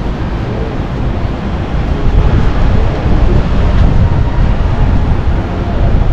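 Busy city street noise: a loud, steady low rumble of traffic mixed with wind buffeting the microphone, growing a little louder about two seconds in.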